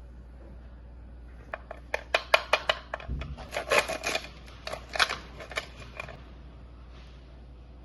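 A quick run of sharp clicks and cracks from about one and a half seconds in to six seconds in: hard-set caramel-coated banana pieces and utensils knocking on a dish before eating.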